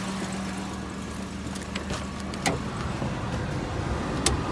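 Suzuki MR Wagon's 660 cc three-cylinder engine idling with a steady hum that fades out a little over two seconds in, while a few sharp clicks and knocks come as someone walks up and gets into the car.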